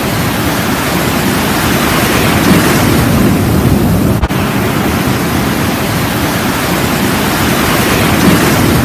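Ocean surf breaking and washing in over the shallows: a loud, steady rush of water with a low rumble underneath, briefly dropping out about four seconds in.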